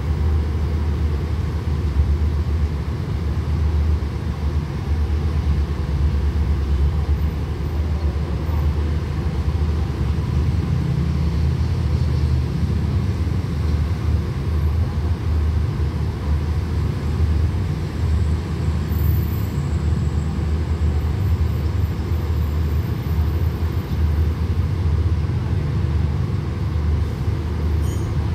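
Steady low rumble of a stationary diesel-hauled passenger train idling at the platform.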